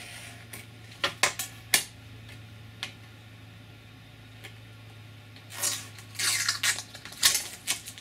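A few sharp clicks about a second in as a scribe point picks at the edge of the protective plastic film on a drilled plastic panel, then, from about five and a half seconds, a rustling, tearing noise in several bursts as the film peels off the panel.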